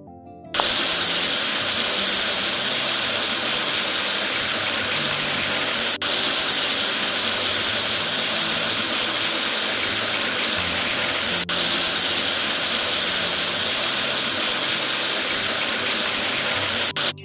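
Loud, steady rushing hiss of spraying water or escaping steam. It cuts in sharply about half a second in, drops out briefly twice, and stops near the end. Faint background music carries on underneath.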